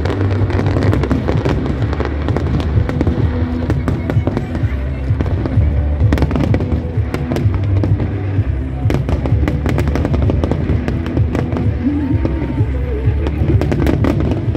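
Dense barrage of aerial firework shells bursting, many sharp bangs in quick succession over a constant low rumble of booms.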